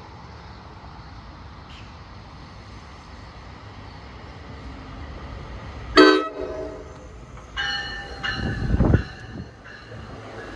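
Train horn sounding over a steady low rumble: a short sharp blast about six seconds in, then a longer blast of several tones together about a second and a half later.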